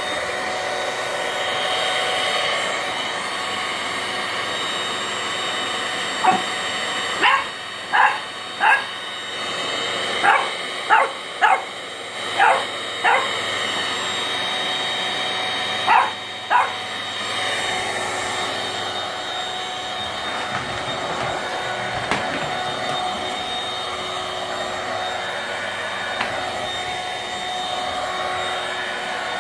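Stick vacuum cleaner running steadily while a French bulldog puppy barks, about eleven short high-pitched barks in three bursts in the middle.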